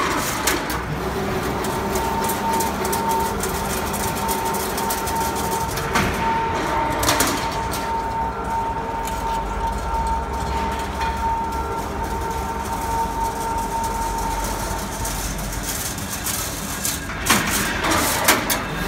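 Automatic single-wire chain link fence machine running: a steady mechanical drone with a high whine that stops about three-quarters of the way through, and clattering knocks about six seconds in and again near the end.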